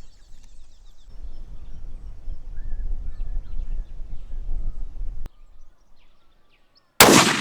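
A low rumble of wind on the microphone with a few faint bird chirps, then a click and a moment of near quiet. Near the end comes a single loud crack from a .223 rifle shot, followed by a long fading echo.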